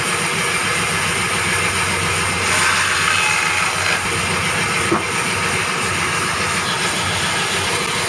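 Wood band saw running steadily, with a louder stretch of the blade cutting through a log about two and a half seconds in. A single sharp knock comes about five seconds in.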